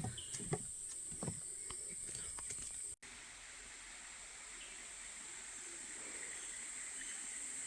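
Rainforest insects buzzing in a steady high-pitched drone, with a few soft knocks in the first second or so. The sound drops out for an instant about three seconds in and then carries on.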